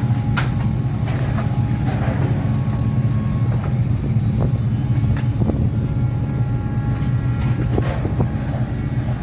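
A vehicle engine running steadily: a constant low hum with a few light clicks.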